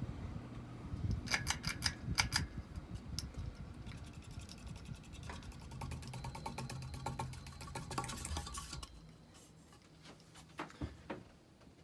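Universal Hugger ceiling fan running with a low hum and bursts of rapid clicking. The hum drops away about nine seconds in, leaving a few faint clicks.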